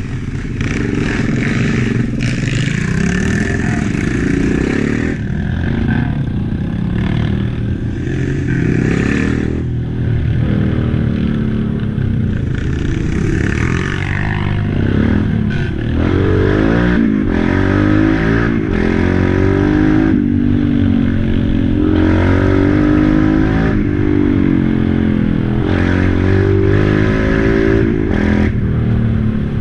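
Quad bike (ATV) engine running and revving up and down as it rides a rutted dirt trail, with knocks and rattles from the machine over the bumps.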